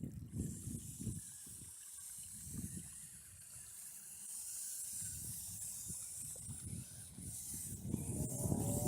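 Wind buffeting the microphone in gusts over the steady hiss of shallow flowing snowmelt water. Near the end a brief whine rises and falls.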